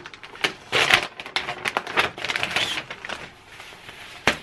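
Plastic packaging bag crinkling and rustling as a gilet is pulled out of it and unfolded, with one sharp crack near the end.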